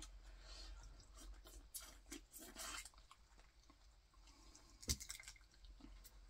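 Faint wet chewing and mouth sounds of eating boiled crawfish, with small clicks from peeling the shells and one sharper snap about five seconds in.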